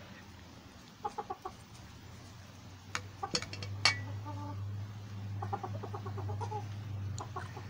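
Chickens clucking in short runs of quick notes: about a second in, around three seconds, and again after five seconds. A few sharp clicks fall near three to four seconds, and a low steady hum sets in about three and a half seconds in.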